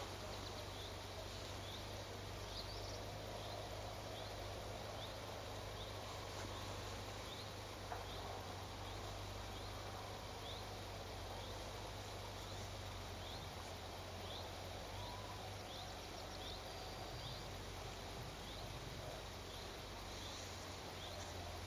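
Quiet outdoor evening ambience: a steady hiss with a faint high chirp repeating about once a second. A single small click about eight seconds in.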